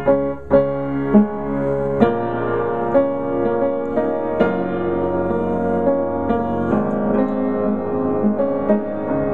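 Piano playing a slow instrumental introduction, with chords struck about once a second.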